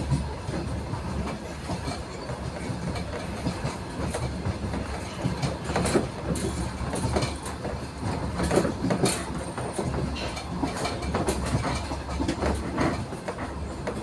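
A passenger train running, heard from inside the carriage: a steady low rumble with irregular clicks and knocks of the wheels on the track.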